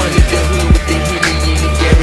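Hip hop backing track with a heavy bass line and deep kick drums.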